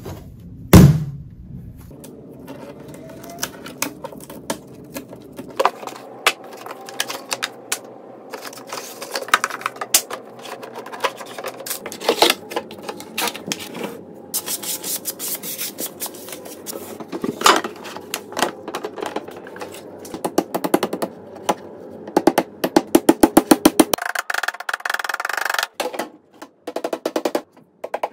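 Knocks, taps and clatter of cabinet panels being handled and fitted together during flat-pack assembly, with a quick run of clicks and louder hammer taps near the end. Light background music runs underneath.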